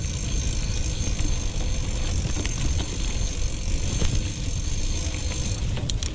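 Mountain bike rolling along a forest path: a steady low rumble of tyres and the ride shaking the microphone, with small knocks and rattles, and a faint steady high whine that stops near the end.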